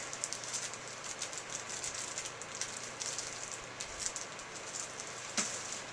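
Packaging being handled, crinkling and rustling in a run of small crackles, with one sharper click about five seconds in.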